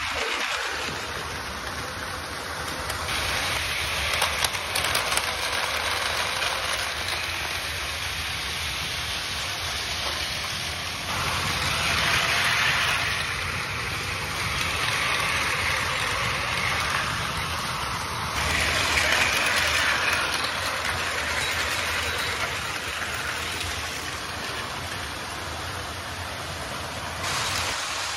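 Several battery-powered Plarail toy trains running at once on blue plastic track: a steady rattling whir of small motors and plastic wheels on the rails, growing louder and softer in stretches.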